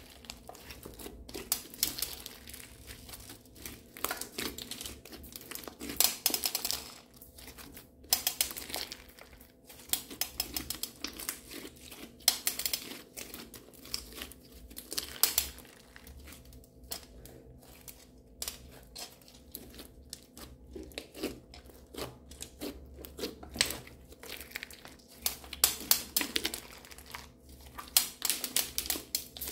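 Thick light blue slime with beads mixed in, kneaded, stretched and squeezed by hand: sticky, crackly clicks and small pops in irregular bursts as the slime is pulled apart and pressed together.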